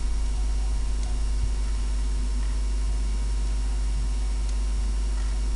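Steady low electrical hum with constant hiss underneath, the background noise of a desktop recording setup, with a few faint clicks.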